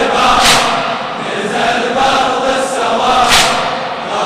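Large crowd of mourners chanting a lamentation refrain together, echoing in the hall, with two loud crashes about three seconds apart.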